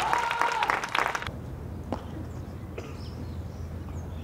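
Spectators clapping, which cuts off abruptly about a second in. After that, quiet ballpark ambience with a steady low hum, a couple of faint knocks and faint bird chirps.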